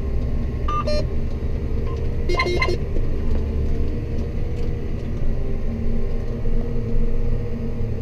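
John Deere 8320R tractor's six-cylinder diesel engine running steadily under load, heard as a low drone inside the cab. Short electronic beeps from the cab controls come about a second in, then a quick run of four or so beeps at about two and a half seconds.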